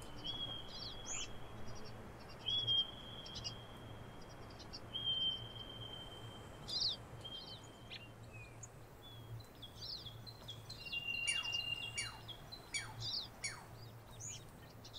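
Wild birds singing: a clear whistled note held for about a second, repeated several times, among short high chirps, with a run of quick falling notes near the end.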